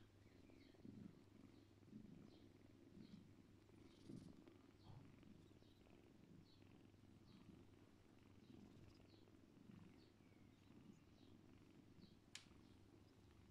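Faint cat purring while the kittens nurse on their mother, swelling and fading about once a second with each breath. A single sharp click near the end.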